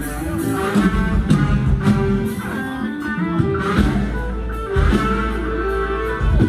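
Thai ramwong dance music played by a live band, with guitar to the fore over a steady bass and beat.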